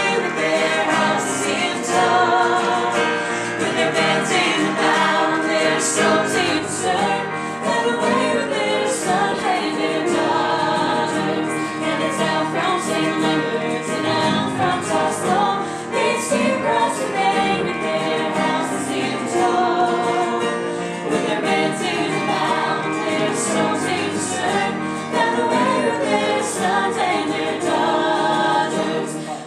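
A small mixed group of male and female voices singing a folk song together, accompanied by an electric keyboard and a strummed guitar.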